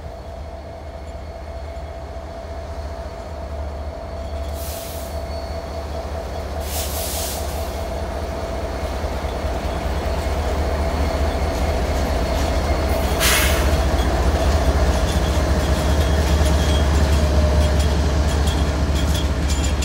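A BNSF SD70ACe and ES44C4 diesel locomotive pair leading a grain train past, their engines running and growing steadily louder as they approach and go by, then the covered hopper cars rolling over the rails with a deep rumble. A thin steady whine runs underneath, with a few short hissing bursts.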